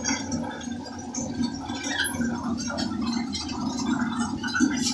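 Tap water running into a bathtub as it fills, a steady gurgling rush of water.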